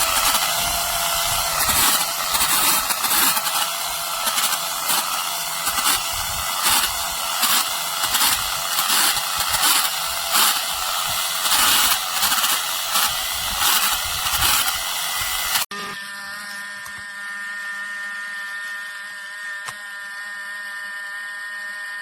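Brushless hand-held hair dryer running: a loud rush of air with uneven surges for about two-thirds of the time, then after an abrupt cut a quieter, steady motor whine with several held tones.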